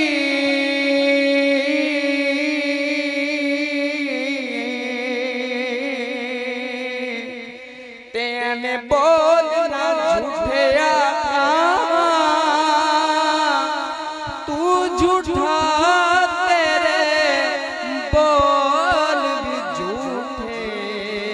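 A man singing a Punjabi devotional song into a microphone. He holds one long note with a slight vibrato that fades about seven seconds in, then sings ornamented, wavering phrases.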